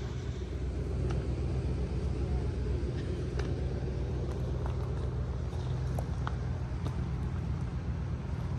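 Vehicle engine idling steadily, a low even rumble, left running through a long cooling-system test with just water in it and no thermostat.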